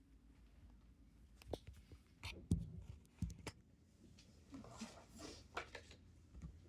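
Quiet room tone with a handful of faint clicks and knocks, then a soft rustle.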